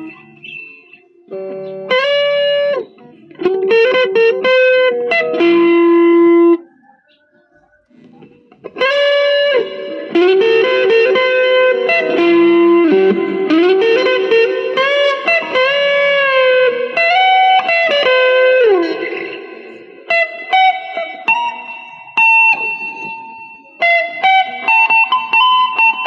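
Electric guitar played through a Joyo DC-15 practice amp: single-note lead phrases with string bends and slides, with a short pause about a third of the way in.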